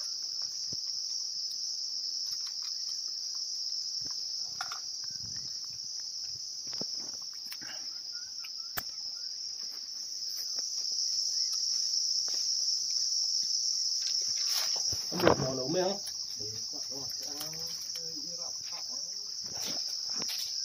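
Steady high-pitched drone of forest insects, with scattered faint clicks and knocks from a homemade muzzle-loading gun being handled.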